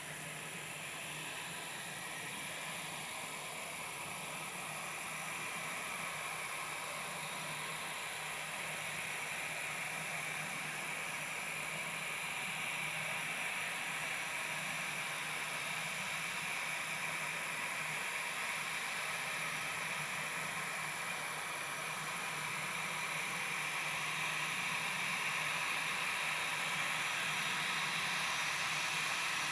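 Airliner taxiing, a steady distant engine whine that slowly grows louder, over constant hiss from the camcorder.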